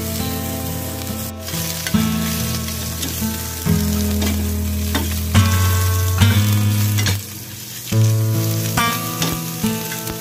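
King oyster mushroom slices sizzling as they fry in a stainless-steel pan, over background music whose held notes change every second or two.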